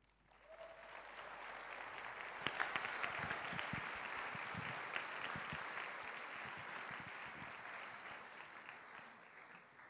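Audience applauding. It builds up over the first couple of seconds, holds, and dies away near the end.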